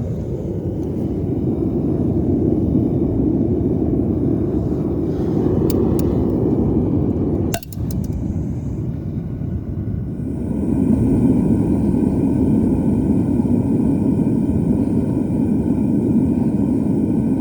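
Dual gas burners of a metal-melting foundry furnace running with a steady, loud rush of flame noise. A few brief metallic clinks come around the middle.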